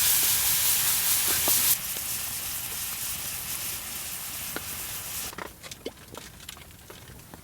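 Food sizzling over campfire embers: a loud, steady sizzle that drops off abruptly about two seconds in and again near the end, with faint crackles and ticks running through it.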